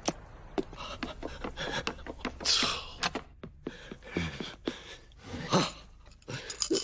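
A string of short clicks and taps, with a breathy gasp about two and a half seconds in and a louder short vocal sound a little past the middle.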